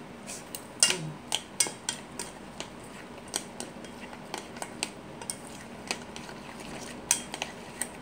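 A utensil stirring thick egg batter in a stainless steel mixing bowl, knocking against the metal side in irregular sharp clacks, a few each second.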